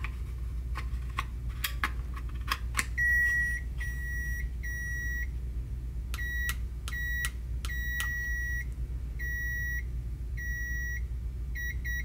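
Ghost Controls wireless keypad being reset: a few plastic clicks as the battery is seated in its case, then the keypad's beeper gives three steady high beeps on power-up. Three short, quick beeps follow as the program button is pressed three times, then a further run of longer beeps as the keypad signals its factory reset.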